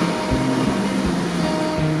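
Background music of held notes changing pitch, over a steady rush of sea surf.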